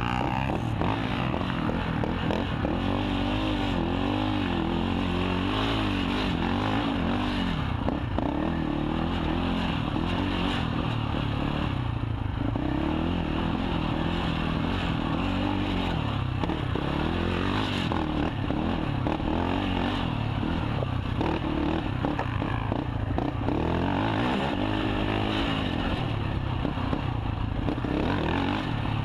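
KTM 450 XC quad's single-cylinder four-stroke engine under race load, revving up and down again and again as it is ridden hard along a wooded trail.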